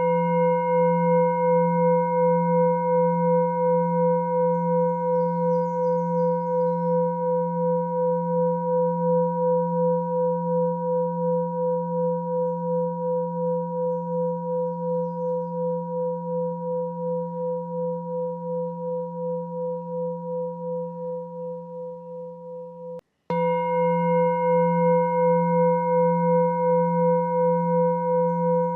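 A singing bowl ringing with a long steady tone and several overtones, pulsing in a slow wobble about twice a second as it slowly fades. Just before the end it cuts off and a new ring starts at full strength.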